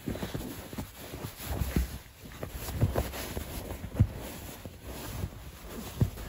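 Shih tzu scrabbling and pawing at a cushion on a leather sofa: irregular soft thumps and rustling scrapes, with a sharper knock about four seconds in.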